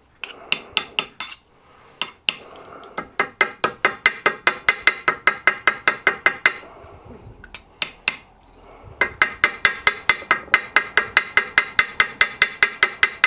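Small hammer tapping rapidly on a bolt with a ball bearing soldered to its end, cutting a hole through a paper gasket laid on the engine casting. Quick ringing metal-on-metal taps, about five a second, in two long runs with a lull about halfway.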